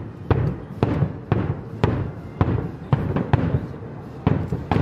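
Daytime aerial firework bombs bursting in quick succession, about two sharp bangs a second, each trailing off in an echo.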